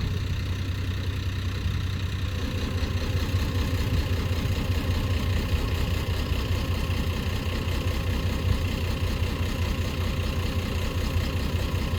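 Boat engine running steadily on a test run, its propeller freshly cleared of tangled cloth scraps; it runs a little harder from about two and a half seconds in.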